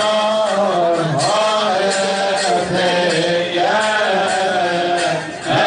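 Men's voices chanting a Coptic hymn together in long, winding melodic lines over a steady low held note.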